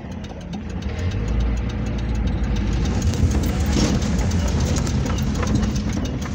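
Car engine running, heard from inside the cabin while driving slowly; the low rumble grows louder about a second in.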